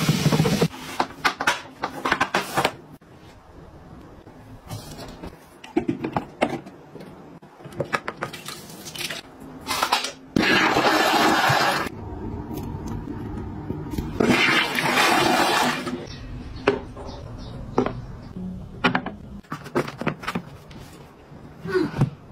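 A toilet flushing, amid scattered clicks and knocks and short hissing rushes.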